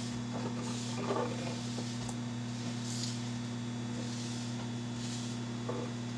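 Microwave oven running with a steady low hum while it heats food. A few soft swishes of a paper towel wiping the countertop come and go over it.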